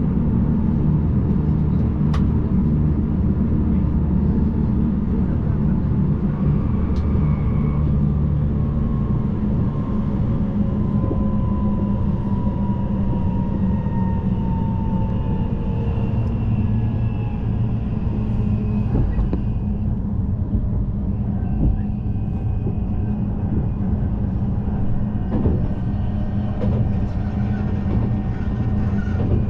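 Passenger train running on the rails, heard from on board: a steady low rumble, with a faint whine that slowly falls in pitch through the middle and a few light clicks.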